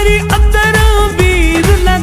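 Sindhi folk-pop song: a held, gently bending melody line over a steady drum and bass beat.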